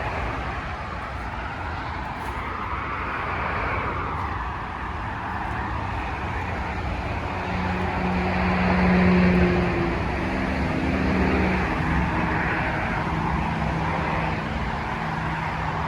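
Interstate highway traffic passing below: a steady rush of tyre noise that swells and fades as vehicles go by, with a low engine drone loudest about halfway through.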